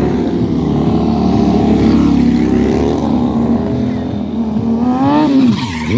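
Motorcycle engines revving during stunt riding, the pitch rising and falling with the throttle, climbing about five seconds in and then dropping sharply.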